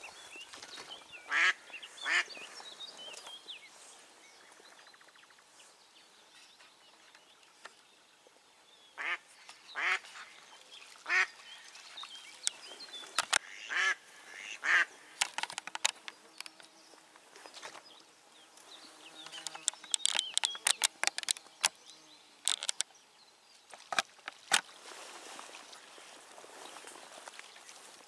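Hen mallard used as a live decoy quacking, in single calls and short series, with a fast run of quick quacks about twenty seconds in. Her calling is meant to draw drake mallards to her.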